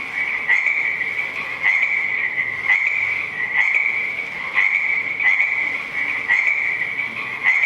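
Recorded frog calls played back through the NAO robot's speaker: a continuous high trill with a sharper croak about once a second.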